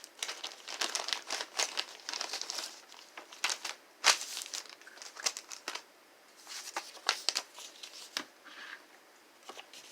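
Plastic Happy Meal toy packaging crinkling in irregular fits as it is handled and opened, with the loudest crackle about four seconds in and brief lulls around six seconds and near the end.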